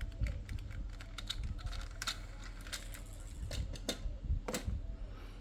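Irregular light clicks and taps of small hard objects being handled, over a steady low rumble.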